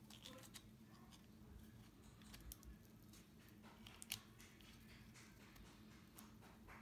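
Faint clicks and taps of plastic Tamiya truck axle parts (housing, bevel gear and shaft) being handled and fitted together as the locked axle is reassembled, the sharpest click about four seconds in, over a low steady hum.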